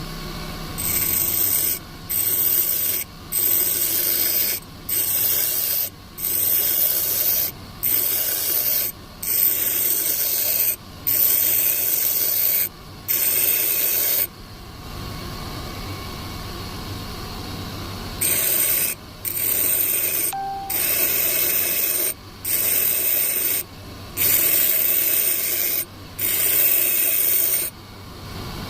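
Rusty steel centre punch being abraded in repeated rubbing strokes, each about a second long with short breaks and a longer pause midway, over a steady background hum.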